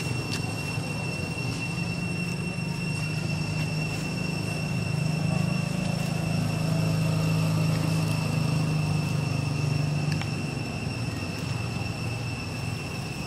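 Low engine drone from a distant motor vehicle, swelling to its loudest about halfway through and then easing off, over a constant thin high-pitched whine.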